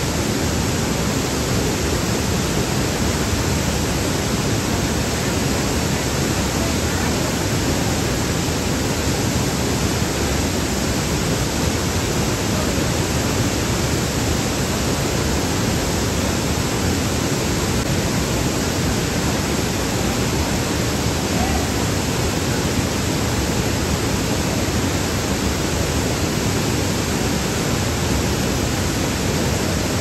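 Waterfall pouring down a rock face into its plunge pool: a steady, unbroken rush of falling water.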